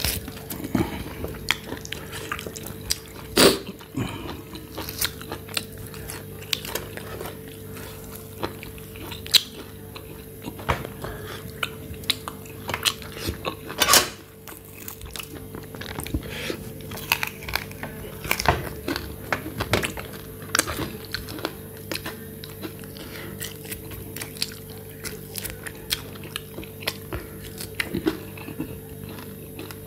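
A person eating roasted goat ribs by hand: biting and tearing meat off the bones and chewing, heard as irregular sharp clicks and smacks. The loudest bites come about three and a half and fourteen seconds in.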